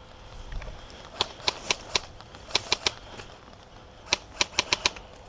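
Airsoft electric rifle, a Tokyo Marui Next Gen SCAR-L, firing quick single shots, each a sharp clack, in three strings: four, then three, then five.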